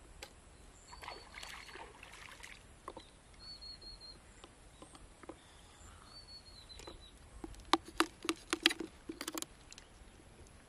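A knife working a freshwater mussel open: faint scraping, then a quick run of sharp clicks and taps of the blade against the shell about three-quarters of the way through. A few faint high chirps sound in the background.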